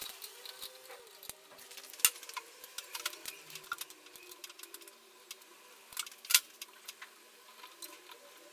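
Light, scattered clicks and taps of small metal parts and hand tools being handled while assembling a motorcycle, with two sharper clicks about two and six seconds in, over a faint steady hum.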